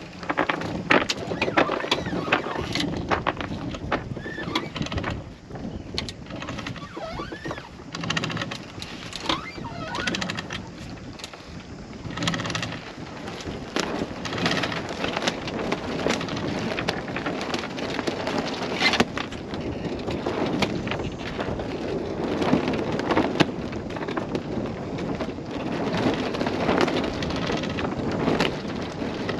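Sailboat mainsail going up in the breeze: sailcloth flapping and rustling, with irregular knocks and clicks from the rigging, over wind noise on the microphone.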